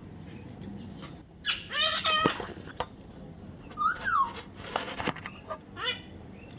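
Parrot squawking in a series of short, harsh calls. The loudest cluster comes about a second and a half in, with a rising-then-falling call near the middle and a few shorter calls toward the end.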